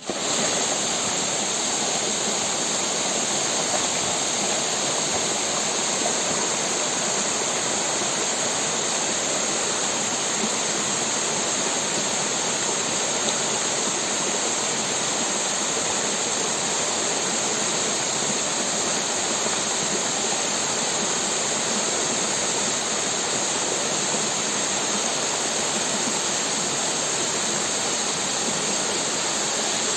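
Steady rush of falling water, starting abruptly and holding even throughout.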